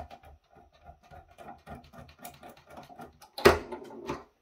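Screwdriver turning out a retaining screw on a server power supply's sheet-metal case: a run of light clicks at about four a second, then one louder clatter about three and a half seconds in.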